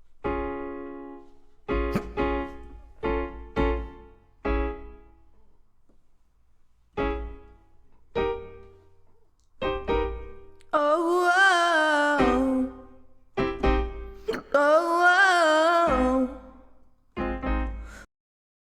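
Piano chords struck one after another, each left to ring and fade, with a voice holding two long wavering sung notes about two-thirds of the way through. The music cuts off suddenly near the end.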